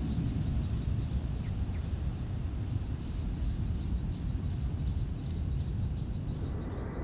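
Low rumble of a Malaysia Airlines Airbus A380-800's four Rolls-Royce Trent 900 engines at takeoff thrust as the jet climbs away, easing off slightly. Insects chirr over it in a fast, even, high pulsing buzz.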